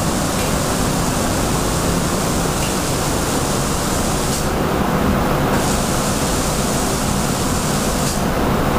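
Automatic spray-painting machine at work in its booth: a steady rush of booth airflow under the hiss of the reciprocator's spray gun, which drops away briefly twice, about halfway through and again near the end.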